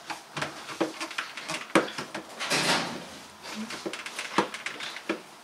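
Plastic clicks, knocks and scraping from the cartridges and housings of a Barrier under-sink water filter being handled and unscrewed in a sink cupboard, with a longer rustle about two and a half seconds in.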